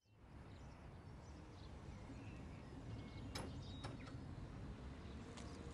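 Faint outdoor street ambience fading in: a low steady rumble of distant traffic with a few faint bird chirps, and two sharp clicks about halfway through.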